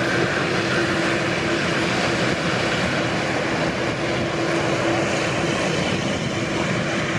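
Airliner engines running steadily: a loud, even rush of engine noise with a held hum underneath.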